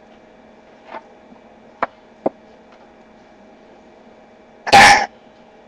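One short, loud burp near the end, after a couple of faint clicks.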